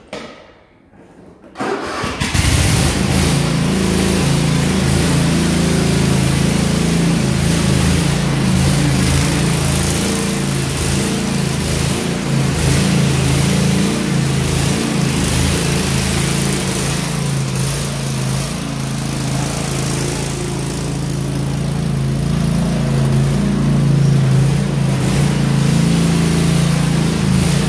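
Cub Cadet RZT 50 zero-turn mower engine starting about two seconds in, then running steadily as the mower is driven around on its newly replaced drive belt.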